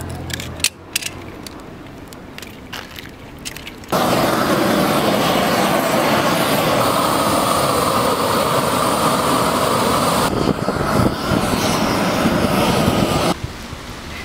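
Handheld propane torch (heat lance) burning with a steady, loud noise as it heats a preformed thermoplastic marking to melt it onto the painted surface. It starts about four seconds in and stops abruptly near the end. Before it come a few sharp clicks from a knife cutting the thermoplastic tape.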